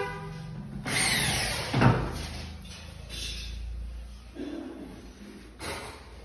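Cordless drill run in a short burst against the ceiling, its motor pitch falling steeply as it spins down about two seconds in. Quieter handling knocks follow.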